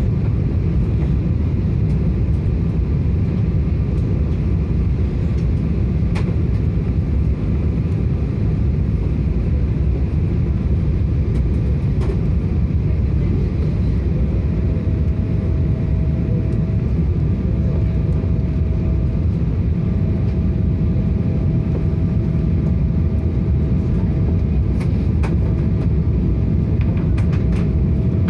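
Steady cabin noise of a Boeing 777 on approach: a low rumble of engines and airflow heard from inside the cabin. A faint steady tone joins it about halfway through.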